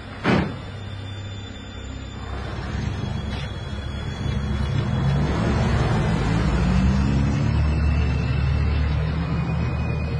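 A car door shuts with a sharp thud just after the start. Then the car's engine runs and grows louder, its pitch rising as the car pulls away.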